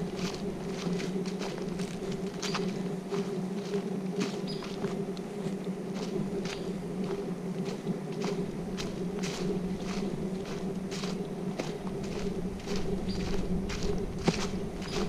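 Footsteps crunching along a woodland trail, about one to two steps a second, over a steady low buzzing hum.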